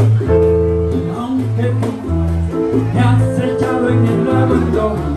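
Live band music, with a bass guitar plucking a moving line of low notes under other instruments.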